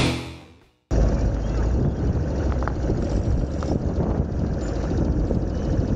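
Background music fading out, then after a moment of silence a steady low rumbling noise cuts in abruptly: wind buffeting the camera microphone outdoors.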